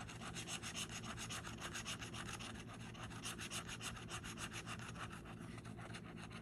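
A bottle opener scraping the coating off a paper scratch-off lottery ticket in quick, repeated strokes, thinning out near the end.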